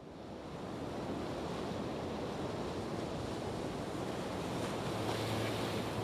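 Steady rushing noise like wind, fading in over the first second. A low steady hum joins it about four and a half seconds in.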